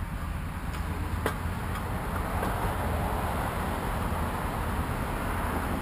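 Steady outdoor background noise with a low rumble, growing louder through the middle, and a single light click about a second in.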